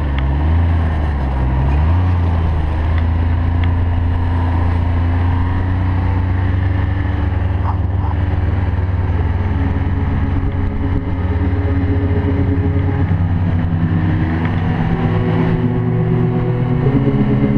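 Ski-Doo Expedition 1200 4-TEC snowmobile's three-cylinder four-stroke engine running under way, steady, with its pitch dipping and rising again a few times as the throttle eases and picks up.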